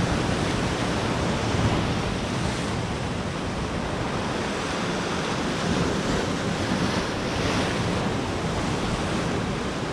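Steady wash of sea surf breaking against a rocky shore, with wind buffeting the microphone.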